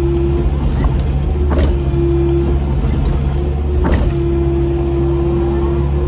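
Kubota KX080 excavator's diesel engine running steadily, heard from inside the cab, with a steady high whine over it. Two sharp knocks come about a second and a half and four seconds in.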